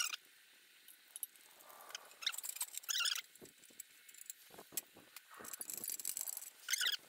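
Hand tools working on a lawn tractor's muffler bolts: scattered sharp metallic clicks, and short high-pitched squeaks about three seconds in and again near the end.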